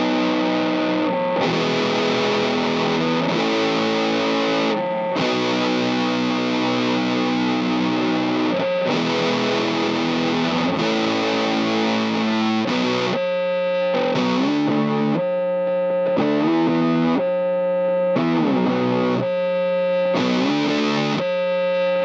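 Fender Coronado II electric guitar played through a Greer Gorilla Warfare MKII distortion pedal, a RAT-style LM308 circuit, into a Strymon Iridium amp and cab modeler. Heavily distorted chords are let ring for a couple of seconds each, then about thirteen seconds in the playing turns to a faster, choppy riff of short chords.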